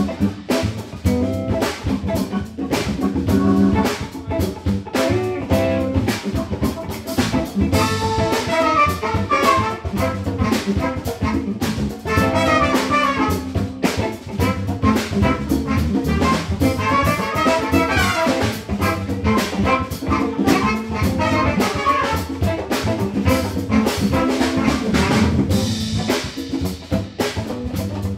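Funk-jazz band playing live: drum kit, bass and keyboards under saxophone and trumpet lines.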